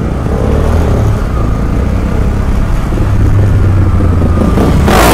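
Motorcycle engines running at low speed as a bike rolls slowly among other running motorcycles, getting slightly louder. A brief loud burst of noise comes near the end.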